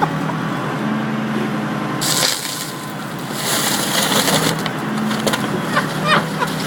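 An excavator crushing a car: the machine's engine runs steadily under bursts of crunching and cracking from the car body, about two seconds in, from about three and a half seconds, and again near the end.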